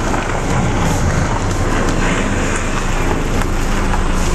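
A 1998 Toyota Corolla with an automatic transmission driving, its engine and road noise heard as a steady rumble from inside the cabin.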